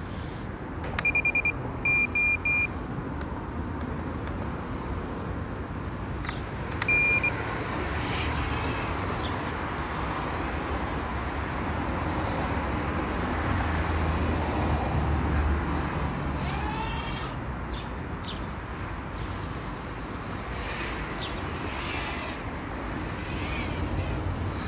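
A few short high-pitched beeps in the first seconds and one more about seven seconds in, then a 1S toothpick micro quadcopter flying, its 1102 19000 KV brushless motors and 65 mm props whining and rising and falling in pitch as the throttle changes.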